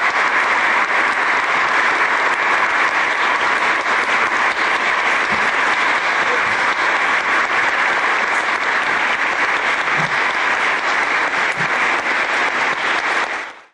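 Concert hall audience applauding, a steady dense clapping that cuts off suddenly near the end.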